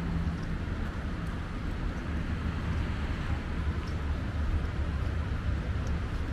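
Steady city street ambience: a low traffic rumble under an even hiss, with a few faint clicks.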